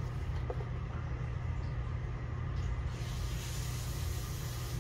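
Steady low background hum, with a faint hiss coming in about three seconds in and a few faint taps from a cardboard box being turned over in the hands.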